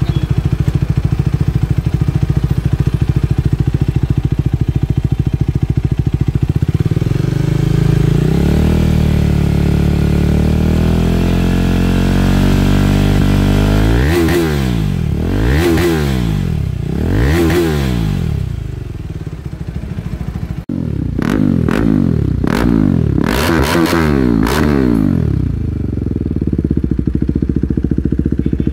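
KTM 390 Adventure's single-cylinder engine running through an Akrapovic slip-on exhaust with the catalytic pre-silencer removed. It idles, rises to held higher revs, and is blipped up and down three times. After a short dip it is given several more quick revs, then settles back to idle near the end.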